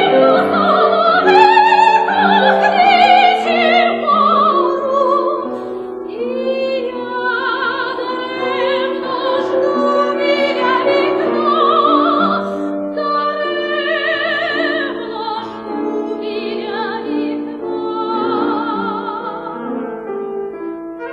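Operatic soprano singing sustained notes with wide vibrato over piano accompaniment, growing softer toward the end.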